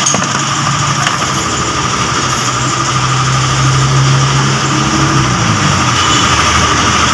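An engine running steadily at idle; a low drone comes in about a second in, holds, then sinks and fades after about five seconds.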